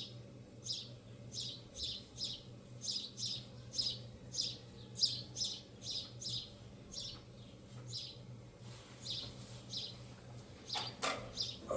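A bird chirping over and over, short high falling chirps about two or three a second, over a faint steady low hum.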